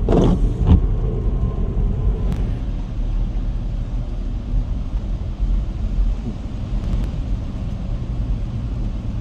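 Steady low rumble of a car driving, engine and tyre noise heard from inside the cabin, with a couple of brief bumps in the first second.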